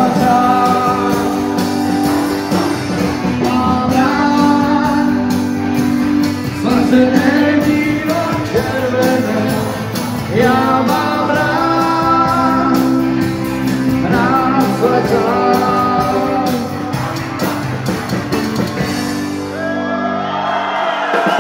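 A rock band playing a song with singing, guitar and drums, heard in a large room. Near the end the drums stop and the music winds down.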